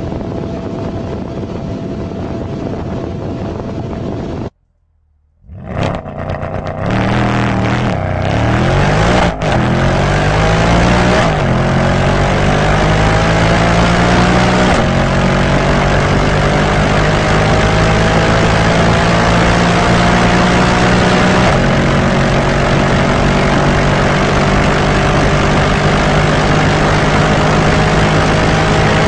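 A steady engine-and-wind sound with a faint held tone cuts off after about four seconds. Less than a second later a high-performance car's engine comes in, pulling hard under sustained acceleration, its pitch climbing slowly and steadily for over twenty seconds.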